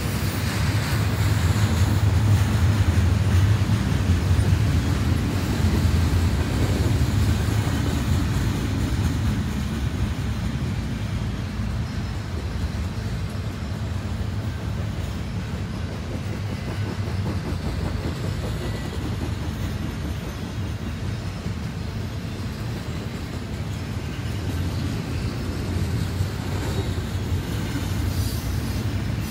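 Double-stack intermodal container cars of a CN freight train rolling past: a steady rumble of steel wheels on the rails, loudest in the first several seconds and then a little quieter.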